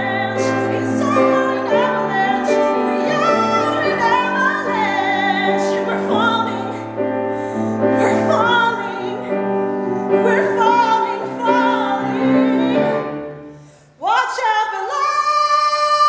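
A woman sings a musical-theatre ballad in full, operatic-leaning voice with vibrato, over piano accompaniment. Near the end the sound dips almost to silence for a moment, then she swoops up into a long, held high note.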